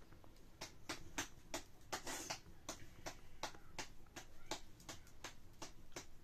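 Hands patting a ball of corn-flour bread dough flat between the palms, a steady run of soft slaps about three a second, starting about half a second in.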